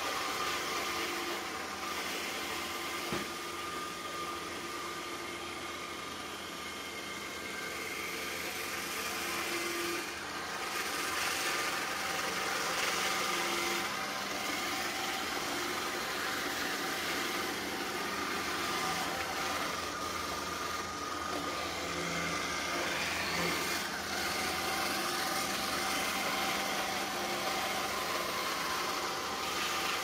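iRobot Roomba s9+ robot vacuum running on a hard wood-look floor: a steady suction motor hum and brush hiss with a faint whine, and one light tap about three seconds in.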